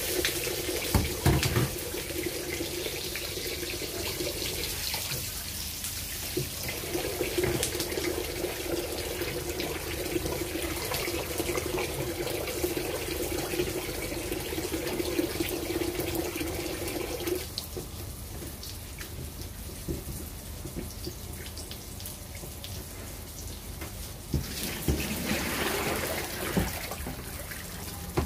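Eggplant omelette frying in oil in a pan: a steady crackling sizzle with scattered pops. A steady hum runs alongside and stops about two-thirds of the way through, and near the end the sound grows louder as the omelette is worked in the pan.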